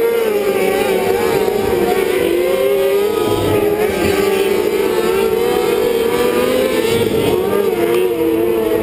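Several winged outlaw karts' engines running hard around the dirt oval at once, their overlapping pitches wavering up and down as the karts go through the turns.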